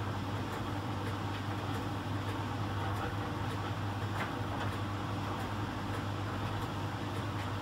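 Miele Professional PT 7186 XL commercial tumble dryer running in its heated drying phase: a steady hum and rush of air from the drum motor and heating blower, with faint irregular soft taps as the load of rags tumbles in the drum.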